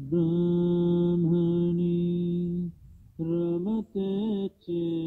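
A man's voice chanting a mantra: one long held note for about two and a half seconds, then after a short breath a run of shorter syllables that rise and fall in pitch.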